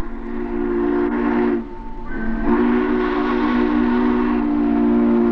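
Steam locomotive whistle of Southern Pacific GS-4 No. 4449, sounding a chord of several steady tones. One blast lasts about a second and a half; after a short break a long blast starts and keeps sounding.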